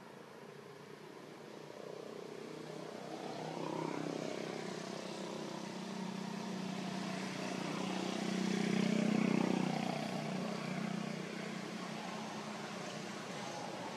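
An engine passing by, growing louder to a peak about nine seconds in and then fading away.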